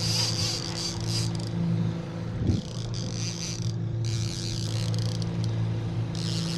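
A boat's engine runs with a steady hum, with bursts of high hissing that come and go, and a brief thump about two and a half seconds in.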